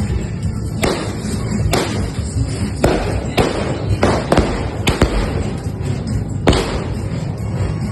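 Aerial fireworks bursting: about eight sharp booms at uneven intervals, each trailing off in a short echo, over a steady low rumble.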